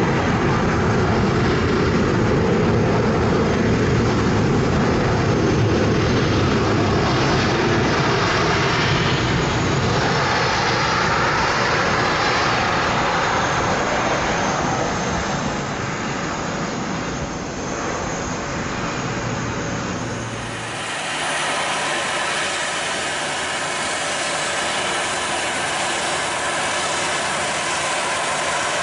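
Boeing 737-900ER's CFM56-7B jet engines running loud during the landing roll on a wet runway, a steady rush mixed with tyre spray. About twenty seconds in the sound changes abruptly to a thinner, steady engine whine as the aircraft taxis.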